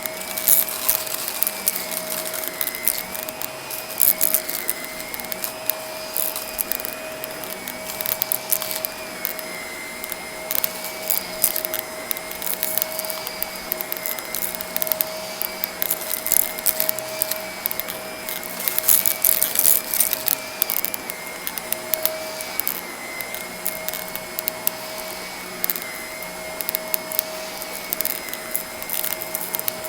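Vacuum cleaner running with a steady motor whine, while small crunchy debris is sucked up with frequent crackling ticks and clicks.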